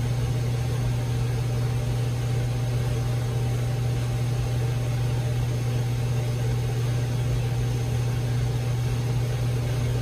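Steady low mechanical hum with an even hiss over it, unchanging throughout: background machine noise such as a fan or heater running.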